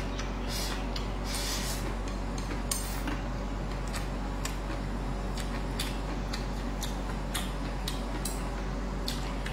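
Close-miked eating: chewing and mouth smacks, with chopsticks clicking against a ceramic rice bowl in short, irregular clicks about once or twice a second, over a steady low hum.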